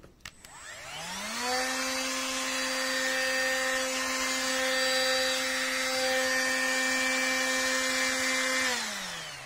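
Parkside PWSA 12 B1 12 V cordless angle grinder switched on with a click and spinning up with a rising whine, then running steadily with no load. Near the end it is released and winds down, the whine falling in pitch.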